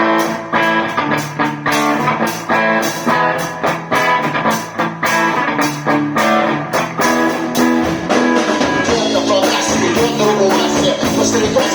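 Band playing a song's instrumental intro: guitar over a drum kit keeping a steady beat, starting abruptly.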